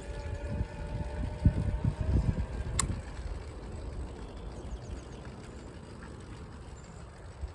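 Wind buffeting the microphone during a bicycle ride along a paved road, over steady road noise. There is a single sharp click about three seconds in, and the gusts ease off after it.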